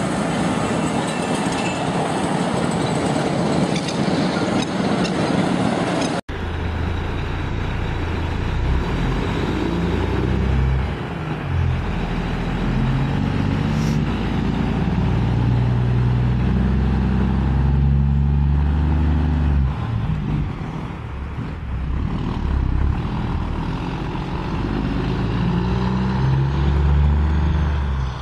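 Heavy diesel trucks. First a road train with tanker trailers passes with a steady broad noise. After a cut about six seconds in, a log truck loaded with timber drives on a dirt track, its low diesel engine note rising and falling with the throttle.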